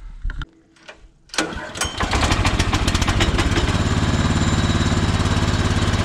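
Kohler Command PRO 14 hp single-cylinder engine on a bandsaw sawmill pull-started on choke: a recoil pull a little over a second in, then it catches on the first pull and runs steadily with a fast, even beat.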